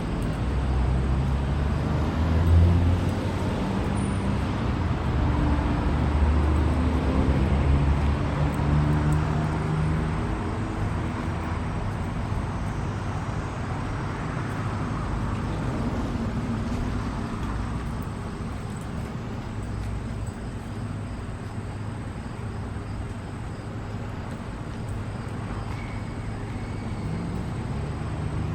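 A motor vehicle's engine running close by, loudest for the first several seconds with its pitch rising slightly, then fading into steady traffic noise.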